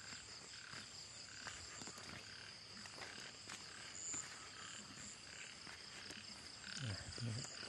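Faint chorus of frogs calling in flooded rice paddies, short calls repeating about twice a second, over a steady high drone.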